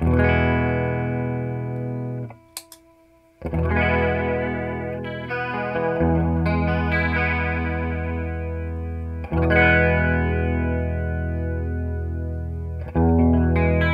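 Guitar chords played through a Julia-clone analog chorus pedal built on an MN3207 bucket-brigade chip. Five chords are struck and each is left to ring and fade under the chorus effect, with a short break just after two seconds.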